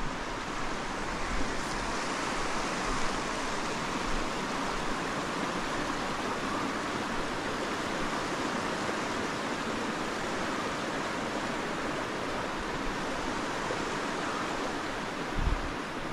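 Small mountain creek running over shallow, rocky riffles: a steady rushing hiss. A low thump near the end.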